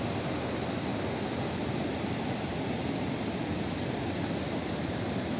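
A rocky mountain river running in white water: a steady, unbroken rush.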